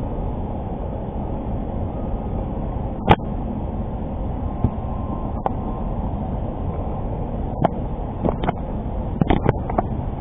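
Steady wind rumbling on the microphone, with a few short clicks and knocks scattered through it, most of them near the end.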